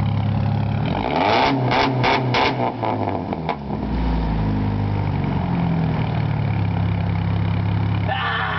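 Straight-piped Dodge Neon four-cylinder with no muffler, heard at the exhaust tip. It idles, is revved up and down in a few quick blips about a second in, then settles back to idle. It sounds mean.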